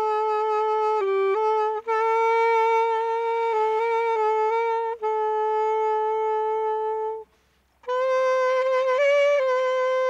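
Solo saxophone playing a slow melody of long held notes, with a short break for breath about seven seconds in.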